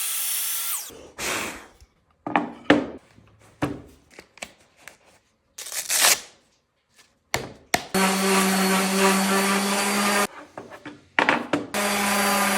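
Electric woodworking saw trimming the end of a hardwood cutting board. The motor winds down in the first second, then wood knocks and clatters. The saw runs steadily for about two seconds about eight seconds in, and again near the end.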